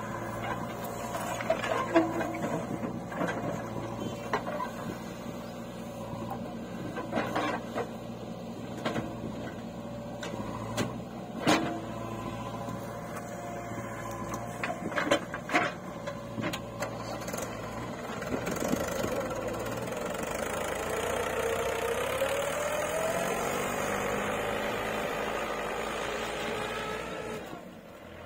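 Diesel engines of a JCB 3DX backhoe loader and a Mahindra tractor running, with sharp clanks and knocks as the backhoe bucket swings and dumps soil into the tractor's trolley. From a little past halfway, the tractor engine grows louder and rises in pitch as it pulls away with the loaded trolley.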